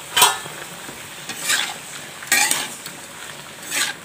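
A metal spoon stirring shredded young sweet gourd frying in oil in a frying pan: four scraping strokes against the pan, roughly a second apart, over a low steady sizzle.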